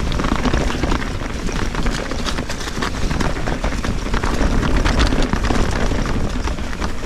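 Trek Fuel EX 7 full-suspension mountain bike descending a trail at speed, its tyres rumbling over dirt with frequent clacks and rattles from the bike, under a steady rumble of strong wind on the microphone.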